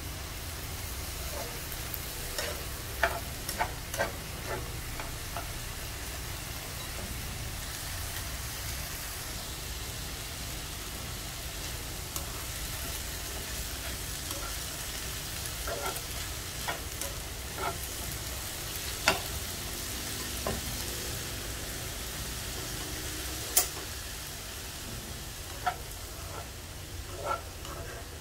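Shredded cabbage and carrot sizzling in a non-stick wok, fried in little oil, while a spatula stirs and turns them. Sharp taps and scrapes of the spatula against the pan come every few seconds, loudest about three seconds in, near the middle and about two-thirds through.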